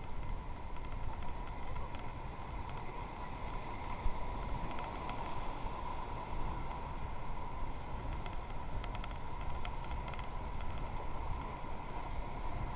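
Steady rush of river water with wind buffeting the microphone, and a few faint clicks and knocks.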